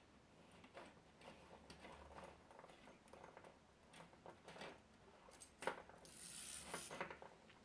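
Faint handling noise of a stainless steel spiral shower hose and its plastic end fitting: scattered light clicks and taps. There is a sharper click about five and a half seconds in, then a brief rattling rustle of the hose's metal coils as it is lifted.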